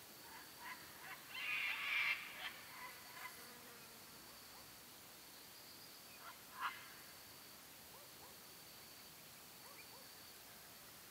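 Faint evening insect chorus: a steady high-pitched buzz throughout. It is broken by a brief harsh, noisy burst about a second and a half in and a short sharp sound past the middle.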